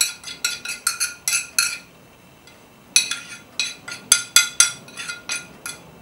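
Metal spoon scraping and tapping on the rim of a ceramic plate to knock chopped garlic and herbs into a bowl, making quick ringing clinks at about four a second. A pause of about a second comes near the middle, then the clinks start again.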